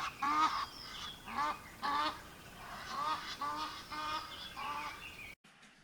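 A run of repeated honking calls, like a flock of birds, coming about one or two a second and cutting off abruptly near the end.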